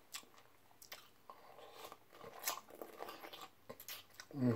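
Close-miked mouth sounds of eating a crunchy pickle spear: scattered faint crunches and chewing clicks as it is bitten and chewed, with a short voiced hum just before the end.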